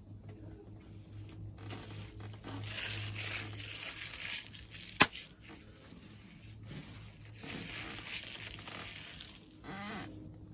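Two spells of crinkling, rustling noise, with one sharp click about halfway through.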